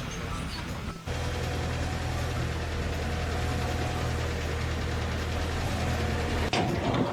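An engine running steadily with a low hum. It starts abruptly about a second in and fades out shortly before the end.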